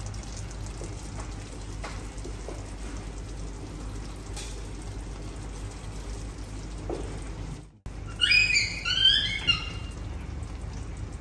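Salmon steaks sizzling in a frying pan, a steady hiss over a low hum. After a brief cut nearly 8 seconds in, a quick series of high, rising squeaks comes in, louder than the sizzle.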